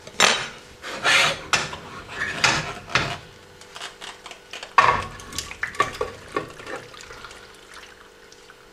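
A saucepan of sausage and pasta in tomato sauce being tipped and scraped out into an oven dish: a run of clanks and scrapes of utensil on pan, thinning out after about six seconds.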